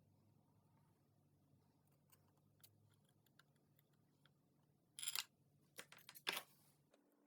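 Near silence with faint scattered clicks, then a few brief scraping, rustling handling noises about five seconds in and again near the end.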